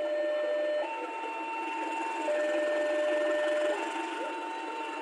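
Level crossing warning alarm sounding: an electronic two-tone signal alternating between a higher and a lower note about every one and a half seconds, over a steady low rumble.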